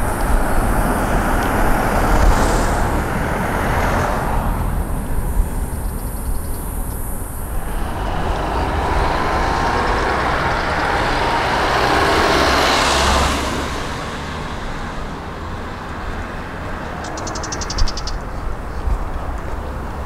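Road traffic: vehicles passing, one swelling louder and fading about twelve to thirteen seconds in. A steady high hiss runs underneath and stops abruptly about eight seconds in.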